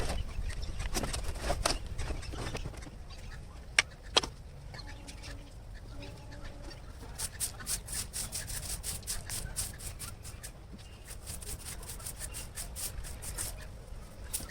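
Chickens calling while a poultry cage is scrubbed of droppings: quick scrubbing strokes, about four or five a second, through the second half, with two sharp knocks about four seconds in.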